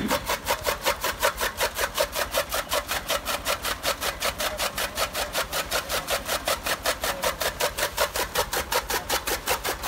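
Tractor-driven flywheel chaff cutter chopping green fodder stalks: a rapid, evenly spaced run of cutting strokes, several a second, over the low steady running of the tractor engine that drives it.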